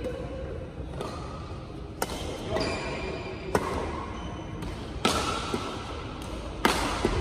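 Badminton rackets striking a shuttlecock in a rally: about six sharp hits, roughly one every second or so, the loudest about six and a half seconds in, each echoing briefly in a large hall.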